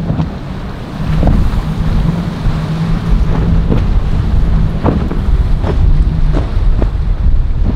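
Strong wind buffeting the microphone over a boat engine's steady drone, with a few short sharp knocks or splashes of water.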